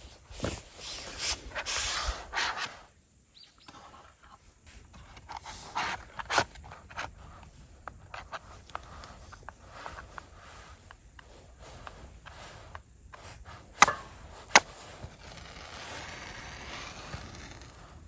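Hands-on handling sounds: scraping and rubbing in the first couple of seconds, scattered knocks and clicks, and two sharp clicks close together about 14 seconds in.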